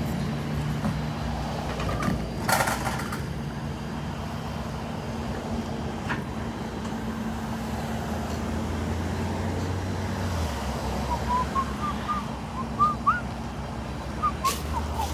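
Heavy wrecker tow truck's engine running steadily, its pitch dropping about ten seconds in. A brief rattle comes about two and a half seconds in, and a bird chirps repeatedly near the end.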